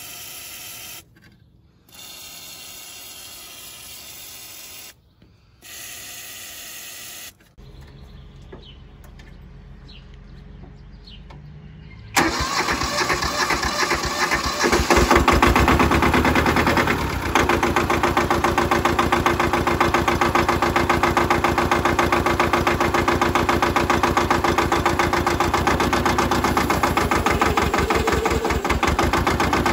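Aerosol lubricant spray hissing in three short bursts onto the mower deck. After a quieter low hum, the Mitsubishi MT372 mower's diesel engine comes in abruptly about twelve seconds in and runs steadily with a rapid, even beat.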